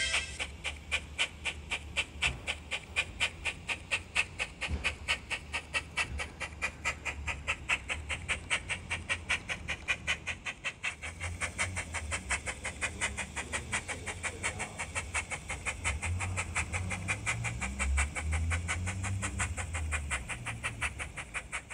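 Steam locomotive chuffing from a Zimo MS490N sound decoder loaded with a Quarry Hunslet sound project, playing through the speaker of a Bachmann OO9 open cab Quarry Hunslet model as it runs light: a fast, even beat of exhaust chuffs. A low rumble runs under it in the second half.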